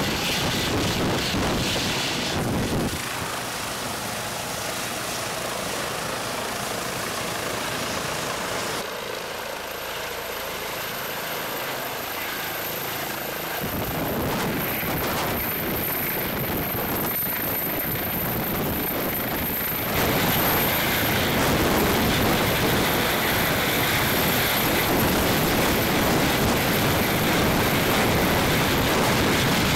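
Light helicopter running on the ground, turbine and turning main rotor giving a steady noisy rush. The sound jumps abruptly in level and tone a few times and is loudest in the last third.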